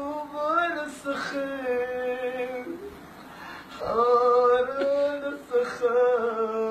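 A man singing a Hindi song unaccompanied, holding long drawn-out notes, with a short break around the middle.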